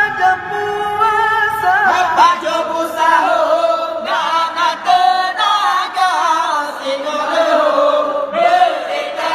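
A group of voices chanting in chorus, holding and bending melodic notes together without instruments: a wake-up chant calling people to rise for the pre-dawn sahur meal.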